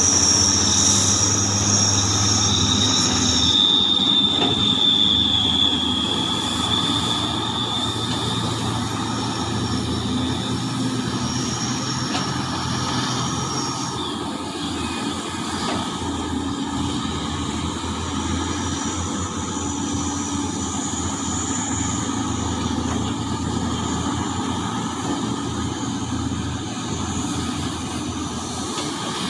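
Heavy mining excavator running with a steady engine drone, with high-pitched metallic squealing over it that is loudest in the first several seconds and comes back fainter a few times later.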